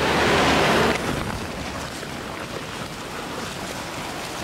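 A car passing close by on the road, a rush of tyre and engine noise that is loudest in the first second, followed by a steady rushing noise.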